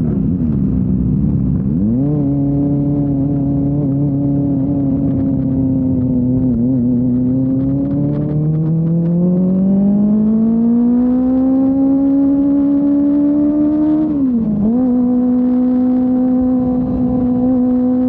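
Kawasaki Ninja ZX-25R's 250 cc inline-four engine through a Yoshimura R-11 exhaust, running at high revs under way. The note dips and recovers near the start, then climbs steadily for several seconds under acceleration. About three-quarters through it drops quickly in an upshift and holds steady again.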